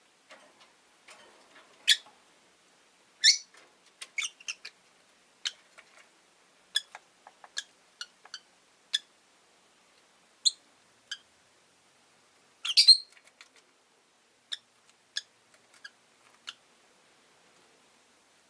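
Rosy-faced lovebirds chirping: short, sharp, high calls at irregular intervals, with a louder run of calls about two-thirds of the way through.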